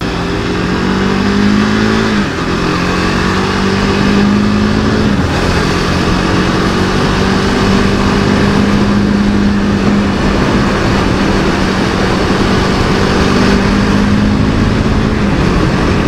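KTM RC 390's single-cylinder engine accelerating under the rider. The pitch climbs and drops with an upshift about two seconds in and again about five seconds in, then holds steady at cruising speed, under a constant rush of wind and road noise.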